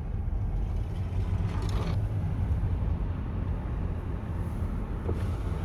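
Steady low rumble of a car driving, with road and engine noise.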